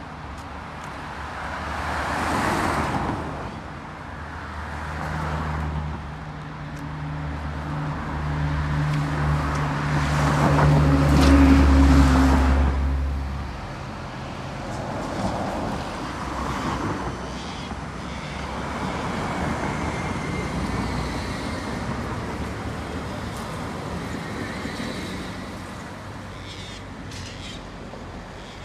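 Road traffic: vehicles passing one after another. Midway a heavy vehicle's engine, a bus, hums steadily for several seconds and grows louder before it cuts off abruptly.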